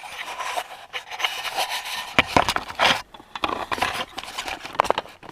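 Hands working the pickup's plastic cab interior: irregular rubbing and scraping with sharp clicks, as the tilt steering column is lowered and the dash trim is handled.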